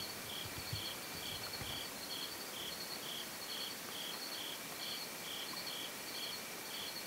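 Crickets chirping in an even rhythm, about two chirps a second, over a steady high-pitched insect trill and a soft background hiss.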